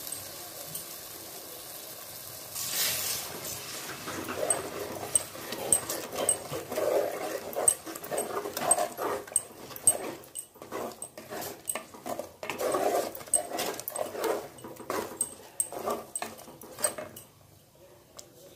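Wooden spatula stirring thick ground-coconut paste into onion-tomato masala in a clay pot, with irregular wet squelching and scraping strokes. A brief hiss comes about three seconds in, and the stirring dies away near the end.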